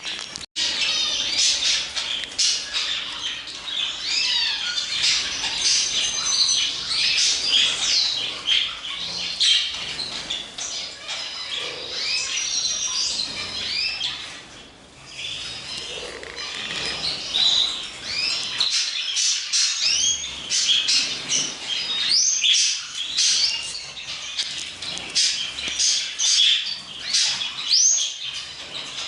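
Many birds chirping and squawking at once in a dense, overlapping chatter, with a momentary dropout about half a second in.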